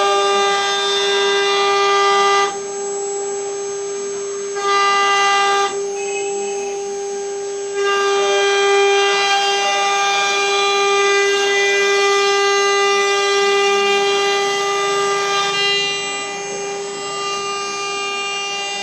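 CNC router spindle running with a steady high-pitched whine. Its sound goes duller and quieter for a couple of seconds a few times, then comes back.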